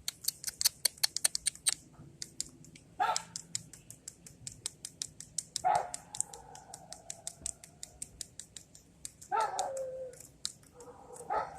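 A dog barking four times, each bark a short falling call, over a run of quick, sharp clicks that are densest in the first two seconds.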